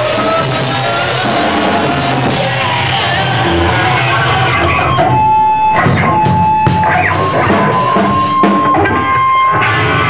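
Loud rock music with guitar and drums. About five seconds in, the dense playing thins out to long held notes broken by sharp struck accents.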